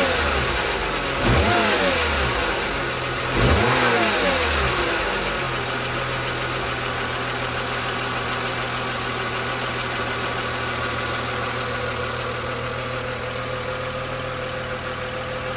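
BMW E36 M3's straight-six engine, warmed up, coming down from a blip of the throttle, blipped twice more in quick succession, then settling to a steady idle with a faint steady whine near the end. It is the hot-engine noise that the owner is chasing, still present with the secondary air pump disconnected.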